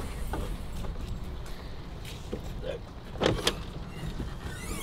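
Scissor door of a replica Lamborghini being opened: a couple of sharp clicks from the latch about three seconds in, then a short squeak as the door swings up near the end, over a low steady rumble.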